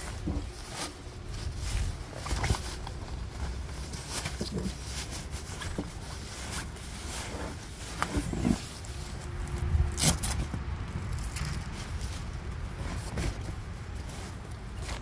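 Rustling and crinkling as a self-inflating sleeping pad is pulled out of its nylon stuff sack with a plastic label sleeve, in irregular handling noises with a louder crinkle about ten seconds in, over a low rumble.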